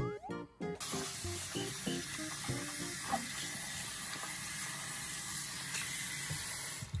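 A steady hiss of kitchen noise, like frying or running water, that cuts in about a second in and stops abruptly near the end, under soft plucked background music.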